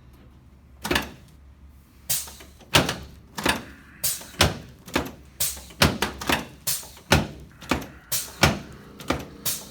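A quick series of sharp knocks, about two a second and somewhat uneven, starting about a second in.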